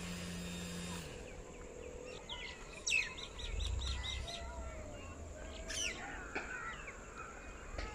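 Small birds chirping and calling against a quiet rural background, with a quick run of repeated high notes about three seconds in and more chirps near the end. A low steady hum at the start stops about a second in.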